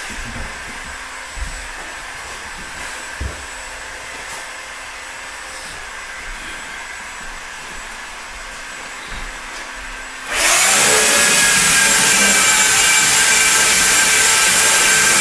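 A low room background with a few faint knocks. About ten seconds in, a loud electric motor switches on, spins up with a rising whine, and then runs steadily.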